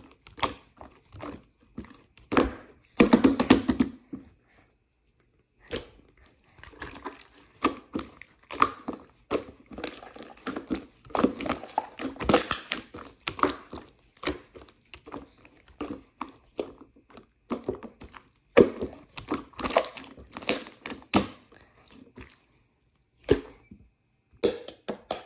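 Marbled slime being pressed and folded by hand, giving irregular wet clicks and pops of trapped air, with a short pause about four seconds in.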